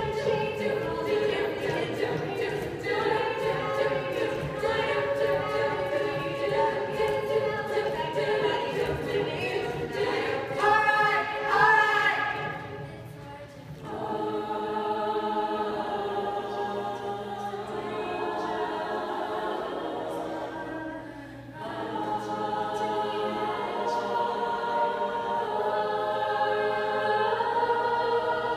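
All-female a cappella group singing a pop song in close harmony, a lead singer on a microphone over sustained backing vocals. The voices briefly thin out twice.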